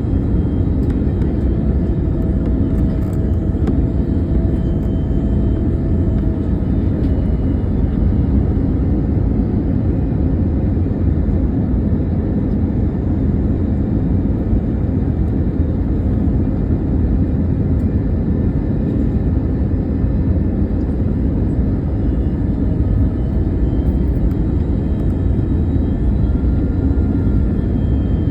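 Passenger airliner during landing: a steady low rumble of engines and airflow, with a faint steady whine above it.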